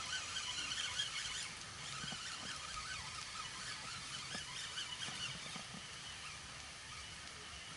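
Spinning reel's drag faintly singing as a hooked pike pulls line, strongest in the first second and a half and then quieter.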